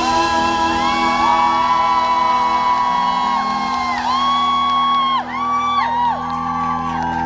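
A live rock band sustaining the closing chords of a song, with long high held notes that slide up and down between pitches over them.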